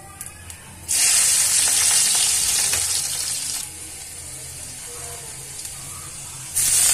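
Chopped ginger and garlic hit hot oil with cumin seeds in a kadhai. A sudden loud sizzle starts about a second in and eases after a couple of seconds to a lower steady frying hiss. The sizzle surges loud again near the end.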